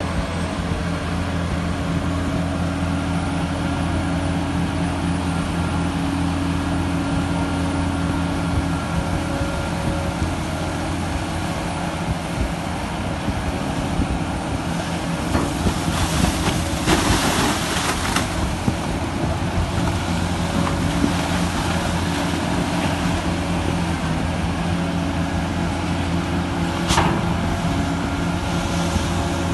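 Backhoe dredger's diesel engines running steadily, a low drone with several held pitches. About halfway through there is a burst of hiss lasting a couple of seconds, and a single sharp knock near the end.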